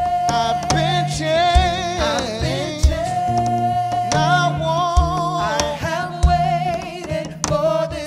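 Gospel worship song: a singer holds long notes with vibrato and runs, over acoustic guitar and a cajon keeping a steady thumping beat.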